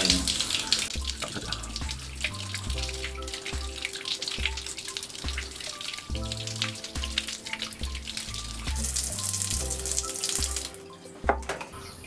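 Tap water running over hands scrubbing a washing machine's small inlet filter screen with a toothbrush; the water stops shortly before the end. Background music with a slow repeating bass line plays throughout.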